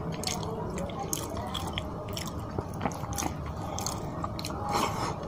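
Close-miked chewing of a mouthful of rice and fish curry, with many short wet mouth clicks and smacks.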